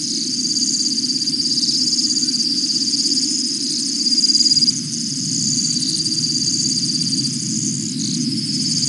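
Steady night chorus of frogs and insects: several overlapping high, rapidly pulsing trills over a lower continuous din.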